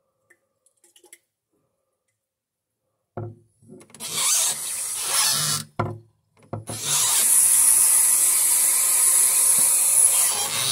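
Bathroom sink faucet turned on, water running as a steady hiss, first briefly and then, after a short break, louder and longer into a small glass jar held under the spout.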